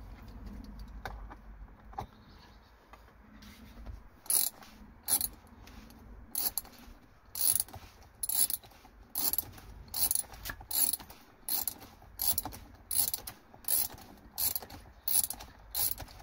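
Ratchet spanner tightening a seat belt anchor bolt: a run of about fifteen ratcheting strokes, one roughly every three-quarters of a second, starting about four seconds in.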